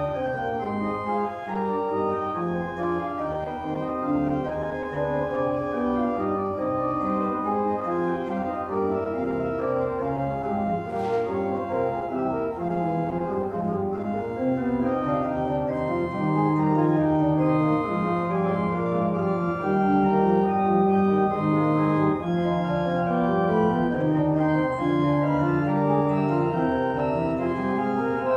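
Church organ playing sustained chords over a moving bass line, growing fuller and louder from about halfway through.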